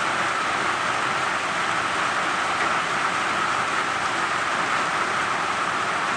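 Steady rain, an even hiss with no separate drops or breaks.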